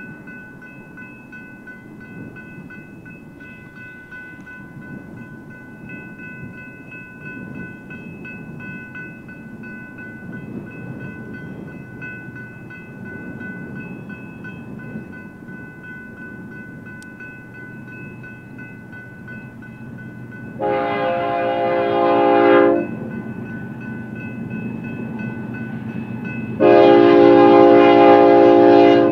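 Grade-crossing warning bell ringing steadily under the low rumble of an approaching diesel freight train that grows louder. The locomotive horn sounds two long blasts for the crossing, one about two-thirds of the way through and one near the end, the loudest sounds here.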